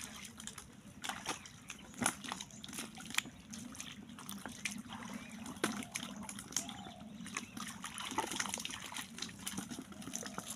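Shallow muddy water sloshing and dripping as people wade through it and grope in the mud by hand, with scattered small splashes.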